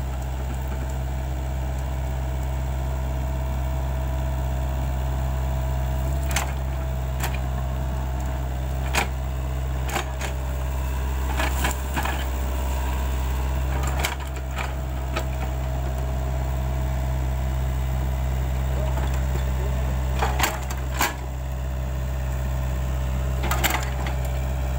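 Sany SY55C mini excavator's diesel engine running steadily as the machine works, with scattered sharp cracks of palm fronds and brush snapping, a cluster around the middle and a few more near the end.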